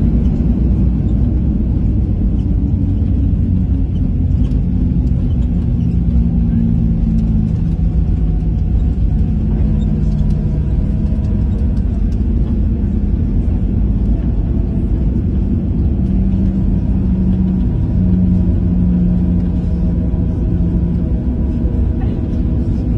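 Jet airliner's landing roll, heard inside the cabin: a loud, steady rumble from the engines and the wheels on the runway, with a hum that shifts in pitch. The noise eases a little over the first few seconds as the aircraft slows.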